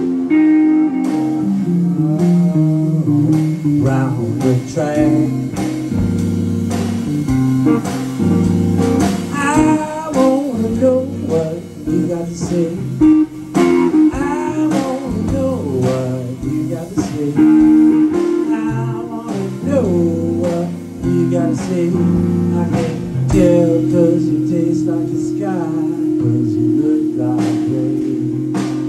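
Instrumental blues break: a solid-body electric guitar plays a solo with bent notes over a drum kit keeping time with cymbals.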